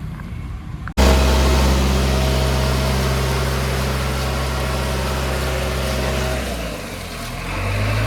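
Heavy diesel engine of an earthmoving machine running steadily, starting abruptly about a second in. It dips and falls in pitch about six and a half seconds in, then settles on a higher steady note near the end.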